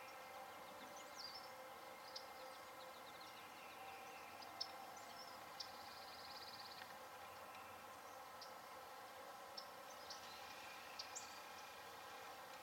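Faint outdoor ambience: scattered short, high bird chirps and a brief buzzy trill about six seconds in, over a steady background hum.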